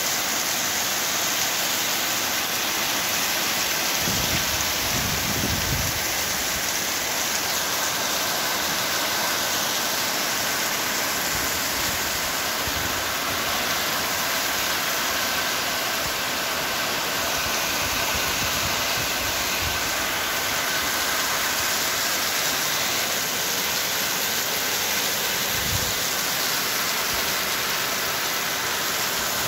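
Rain falling steadily, a dense, even hiss at a constant level, with a couple of brief low rumbles about four seconds in and near the end.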